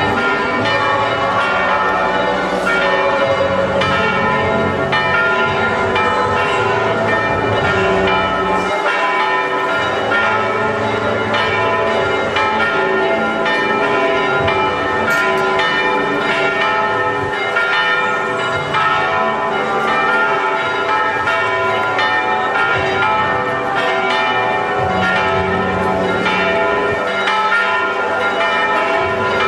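Church bells pealing for a religious procession: several bells struck over and over, their tones ringing on and overlapping at a steady level.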